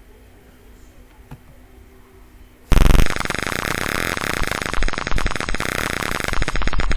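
Piezo buzzer of a simulated Arduino fire alarm, sounding an alarm when a sensor reading crosses its threshold. It comes on suddenly about two and a half seconds in as a loud, steady electronic buzzing tone and keeps going.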